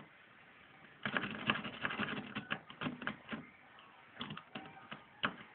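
Metal lock pick scraping and clicking inside an old Ford Granada's ignition lock cylinder, with the plug held under tension. A rapid run of small clicks starts about a second in, pauses, and picks up again near the end.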